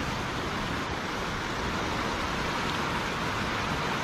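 Sea surf washing over a rock ledge: a steady rushing hiss.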